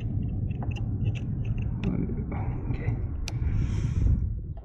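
Steady low rumble of a hand-held camera being jostled, with scattered light plastic clicks and rustling as a hand fumbles a turn-signal bulb socket into its housing behind the bumper; one sharper click a little past halfway.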